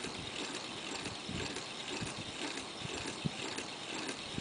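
Homemade Newman motor spinning a large 32-inch fan blade: a steady run of fast, uneven clicking and rattling from the running mechanism, over a rush of air from the blade.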